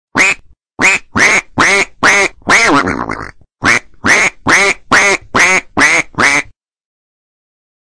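Duck quacks played as a sound effect: a run of about six loud quacks, then after a short pause a quicker, even run of about eight more that stops partway through.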